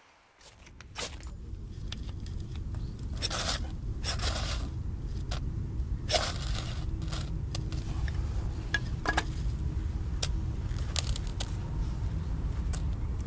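A series of separate scrapes and crunches, as of things being handled, over a steady low rumble that comes in about half a second in.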